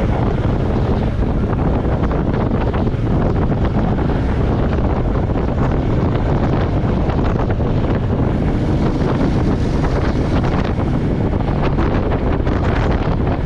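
Royal Enfield Meteor 350's single-cylinder engine running steadily while riding, with heavy wind buffeting on the action camera's microphone.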